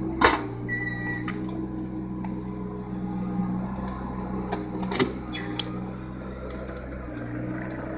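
John Deere mini excavator's diesel engine running steadily, with two sharp knocks as the machine works the logs, one just after the start and the louder one about five seconds in. A brief high whine sounds about a second in.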